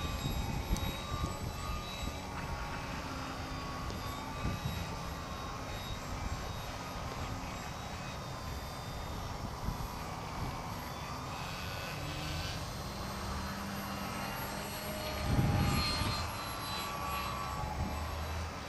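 Electric motor and propeller of a 39-inch foam 3D RC airplane in flight, a thin whine that shifts a little in pitch as the throttle changes, over a steady low rumble. It swells briefly louder about fifteen seconds in.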